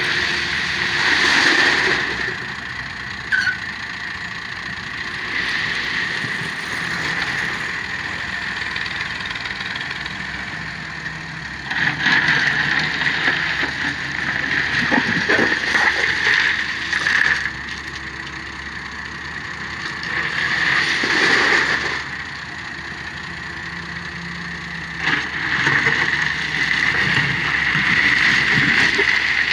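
Excavator's engine and hydraulics running steadily, swelling louder four times, for a few seconds each, as the machine works under load.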